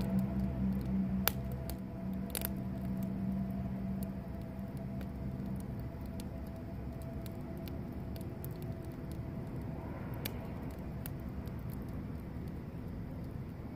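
Wood campfire crackling, with scattered sharp pops and snaps. A low steady hum underneath fades out about six seconds in.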